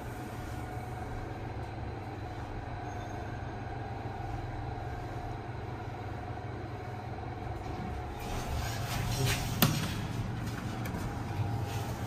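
Hitachi lift car travelling upward: a steady hum and low ride rumble inside the car. Near the end the sound grows louder and busier, with a sharp click.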